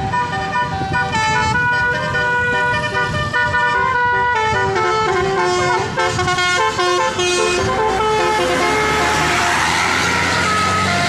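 Bus's Basuri telolet horn, a multi-note air horn, playing a tune of short stepped notes that rise and fall in pitch. Near the end the notes thin out under a rushing noise.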